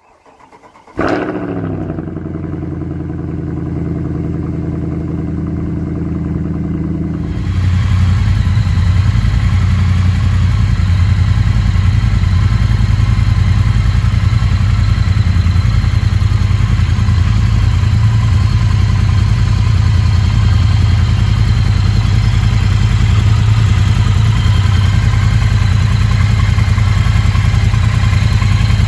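Triumph Bonneville's 270-degree parallel-twin engine idling steadily, starting about seven seconds in. Before it come a sudden falling whoosh and a few seconds of a held tone.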